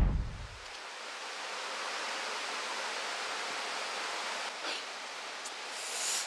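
A loud rumble dies away in the first second. After it comes a steady rushing noise.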